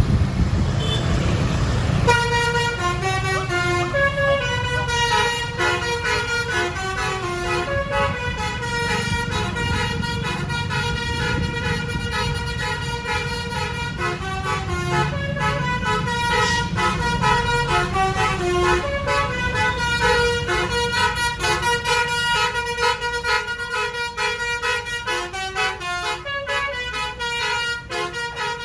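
Bus telolet basuri horn playing a long melody of changing notes, starting about two seconds in, over the rumble of engine and road noise.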